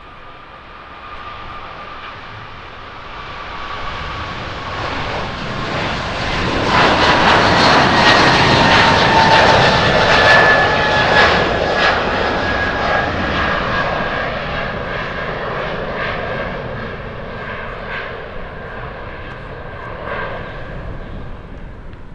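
Boeing 777 twin-jet's engines at takeoff thrust as it lifts off and climbs past. The roar builds over several seconds and peaks with a crackle about eight to eleven seconds in, then slowly fades. Meanwhile a whining tone drops in pitch as the plane goes by.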